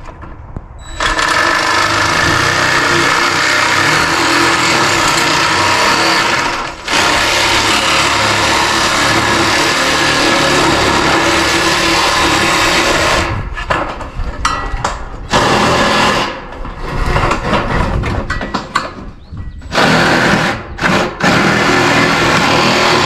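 Handheld cordless power shear cutting a ribbed steel roofing panel, a loud steady mechanical chatter. It starts about a second in, drops out briefly near the middle, and in the last third runs in shorter stop-start bursts as the cut goes on.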